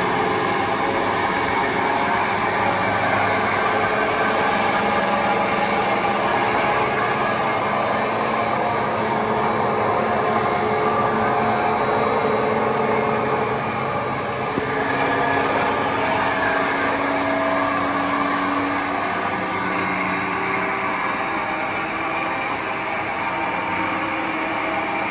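A 16-ton generator rotor spinning on a soft-bearing balancing machine, belt-driven by an electric motor, its journals turning on the machine's support rollers. A steady mechanical whir and hum with several held tones that shift about halfway through.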